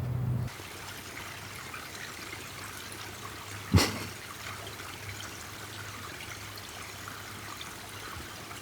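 Steady trickle of running water, like a small stream. Once, a little under four seconds in, there is a single short thump that drops quickly in pitch.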